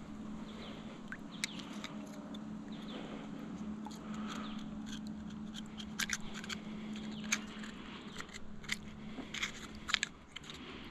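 Oyster knife prying and scraping at a wild oyster's shell to shuck it: a scatter of sharp clicks and scrapes of steel on shell, more of them in the second half.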